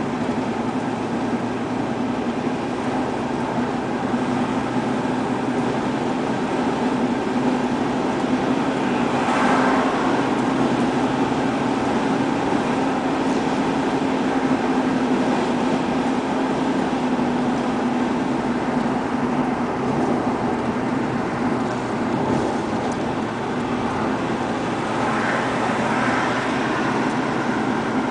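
A car driving steadily on a highway, heard from inside the cabin: a constant drone of engine and tyre noise.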